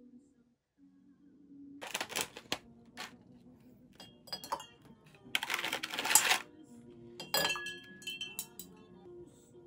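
Ice cubes dropped into a small glass vase of water, clinking against the glass and splashing, in a string of sharp clinks with a longer rattle about halfway through.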